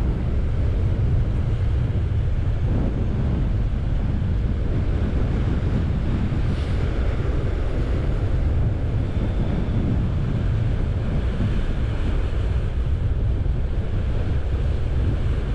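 Wind buffeting the microphone over the steady wash of surf on sea rocks.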